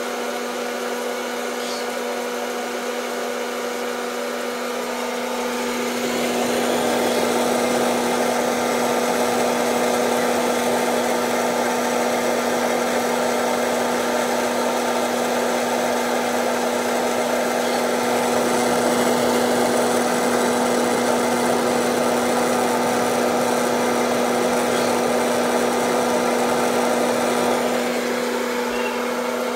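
Hot-air popcorn maker running: its fan motor hums steadily under a rush of blowing air as it heats the still-unpopped kernels. It gets louder about six seconds in and drops back near the end.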